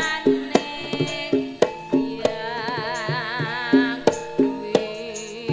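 Javanese gamelan music with a sinden, a female singer, holding a long note with wide vibrato about halfway through. Sharp hand-drum strokes and ringing bronze gamelan notes keep a steady beat throughout.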